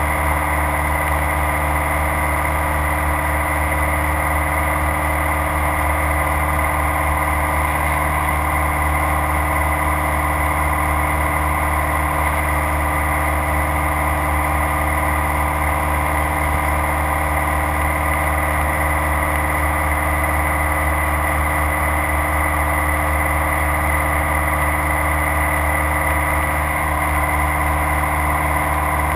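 Light aircraft's piston engine and propeller running steadily in flight, heard from inside the cabin.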